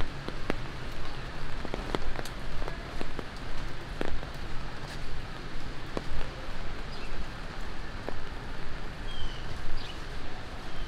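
Rain falling on wet city pavement: a steady hiss with scattered sharp drip ticks, over a low city rumble.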